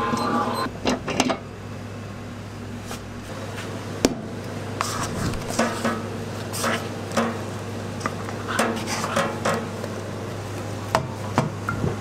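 Stainless steel mixer bowl knocking and scraping as gloved hands work a ball of dough loose from it, with a sharp clank about four seconds in and more knocks near the end, over a steady low hum.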